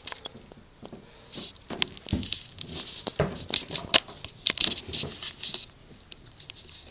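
Irregular taps, clicks and rustling close to the microphone, thickest just past the middle: footsteps and the handheld camera being moved about while walking.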